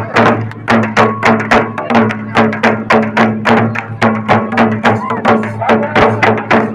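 Traditional folk drumming: a fast, even beat of about five strikes a second over a steady low drone.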